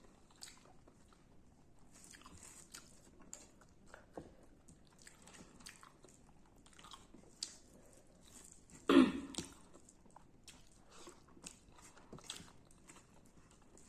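Close-miked chewing and crunching of raw radish with rice: soft, crackly mouth sounds throughout, with one loud crunchy bite about nine seconds in.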